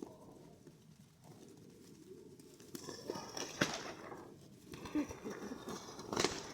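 Domestic pigeons, with two bouts of clattering wing flaps, each a second or more long: the first about halfway through, the second near the end, over a steady low background rumble.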